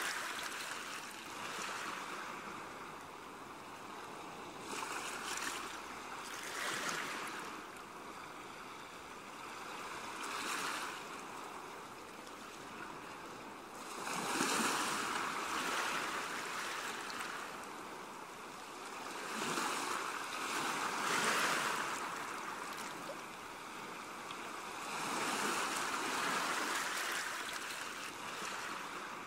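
Sea waves washing in, a rushing noise that swells and fades every few seconds.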